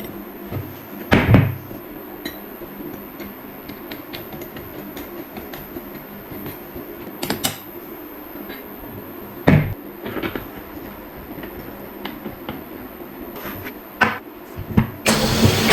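Scattered knocks and clicks from tools and parts being handled, with a few louder thumps among them. A louder noisy burst comes in the last second.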